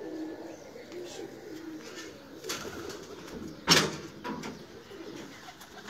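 Domestic pigeons cooing in low, warbling calls. A single sharp clap a little past halfway is the loudest sound.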